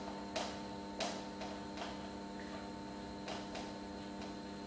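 Marker writing on a whiteboard: a handful of irregular taps and strokes of the tip against the board, the two loudest in the first second, over a steady electrical hum.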